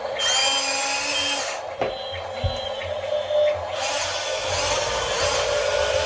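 Small electric motor of a toy excavator whirring in runs of a second or two, each run starting with a rising whine.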